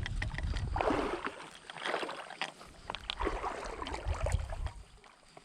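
Water splashing and sloshing in surges about once a second, over a low rumble from wind on the microphone.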